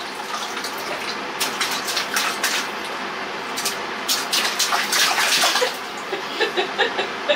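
A young child splashing in water: a run of irregular splashes over a steady wash of water noise, heaviest in the middle and easing off near the end.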